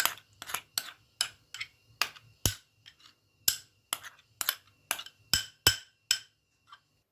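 A kitchen utensil clinking and knocking against cookware while an omelette is handled in a frying pan: about twenty sharp clicks, irregular at roughly three a second, stopping shortly before the end.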